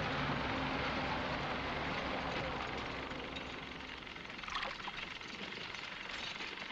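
An engine running steadily: a low hum under a rushing noise, easing off a little about four seconds in.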